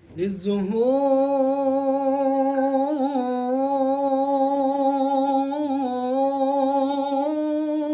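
A lone voice, unaccompanied, takes a quick breath and then holds one long sung note with a slight waver, part of a slow religious nasheed.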